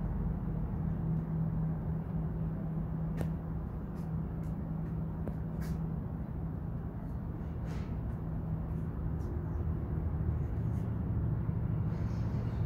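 A steady low mechanical hum and rumble, with a few faint clicks; the pitch of the hum drops a little about ten seconds in.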